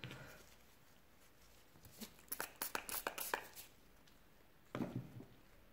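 Quiet handling noise: a quick run of light clicks and taps from small objects being handled on the table about two seconds in, then a softer thump near the end.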